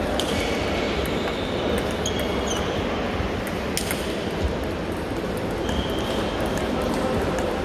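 Busy table-tennis hall ambience: a steady din of the hall with scattered sharp ping-pong ball clicks from other tables and a couple of short high squeaks.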